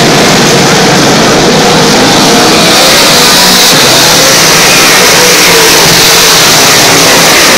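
A pack of dirt modified race cars' V8 engines running at racing speed around the track, a very loud, constant blare with no let-up.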